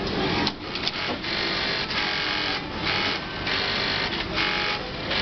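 Brother industrial lockstitch sewing machine stitching in several short runs, each under a second, with brief pauses between them as the fabric is guided, over the steady din of other sewing machines.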